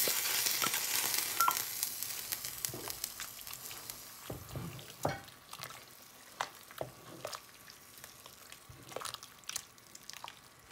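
A pot of simmering broth hissing as baby spinach goes in, the hiss fading over the first few seconds. A wooden spoon then stirs the spinach through, with scattered knocks against the pot.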